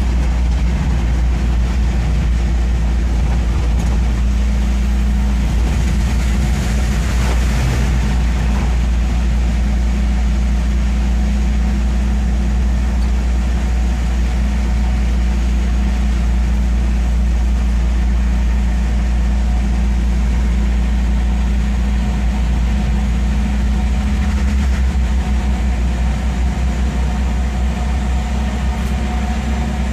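Steady low engine drone heard from inside a moving vehicle's cabin, over an even hiss of rain and tyres on the wet road; the hiss swells briefly about seven seconds in.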